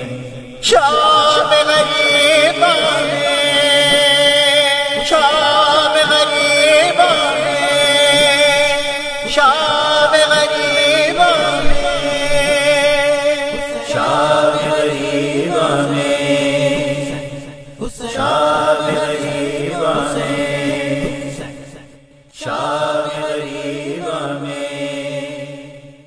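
A man's voice chanting a noha, a Shia lament, in long wavering melodic lines over a steady drone. The chant breaks off briefly twice in the second half and trails off at the very end.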